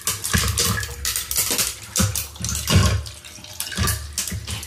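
Close-miked clatter and rustling of food being handled with utensils: a run of short, irregular scrapes and taps.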